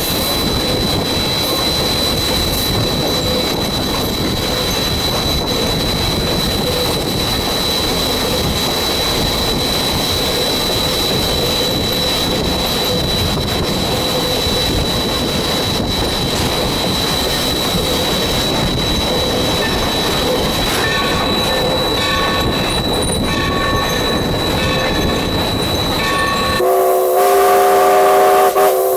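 Cab of steam locomotive No. 3025, a 2-8-2, rolling along: a steady, dense rumble of running gear and wheels on the rails under a thin, high, steady whine. Near the end its chime whistle blows loudly, a chord of several notes held on.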